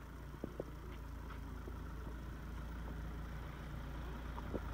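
Mahindra Thar's engine running at a low idle as the SUV creeps down a steep muddy slope, getting gradually louder as it comes closer, with a few faint clicks.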